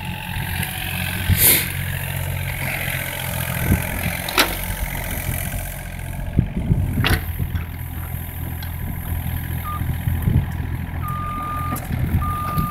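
Mini excavator's diesel engine running steadily while its hydraulics swing the upper structure and work the arm, with a few sharp knocks. Near the end the machine's warning alarm starts beeping in steady beeps about a second long.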